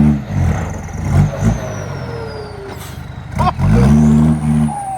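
Heavy vehicle sounding a low, steady multi-tone horn twice: a blast right at the start and a longer one of about a second near the end, with thin falling whistle-like tones between them.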